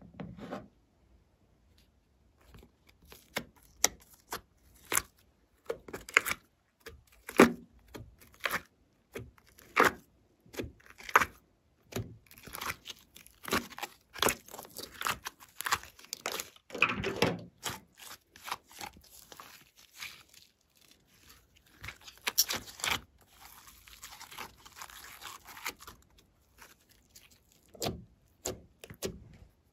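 Slime and soft modelling clay being pressed, pulled and stretched by hand, giving irregular sticky crackles, pops and squelches. A longer tearing hiss comes about three quarters of the way through.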